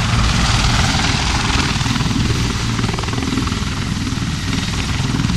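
Loud aircraft noise: a steady rushing sound over a deep rumble, easing slightly partway through.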